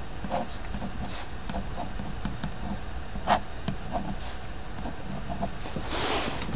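Ballpoint pen writing on graph paper: light scratching strokes and small ticks, with one sharper tick about three seconds in, over a steady background hiss. Near the end there is a brief rustle of the hand sliding off the paper.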